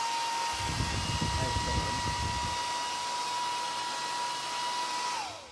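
Small car vacuum cleaner's motor and fan running on 12 V DC, a steady high whine over a rush of air. Near the end it is switched off and the whine falls as the motor spins down.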